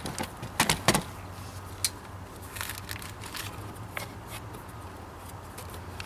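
Light clicks and taps of hands handling wires and plastic trim pieces on a motorcycle. A cluster of sharp clicks comes in the first second, then sparser faint ones over a low steady hum.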